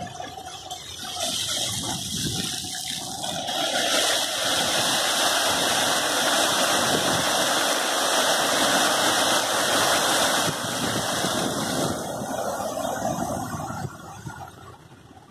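Fountain jets splashing down into a pool, a steady rush of water. It builds over the first few seconds as the jets rise to full height, holds strong through the middle, and dies away near the end as they drop back.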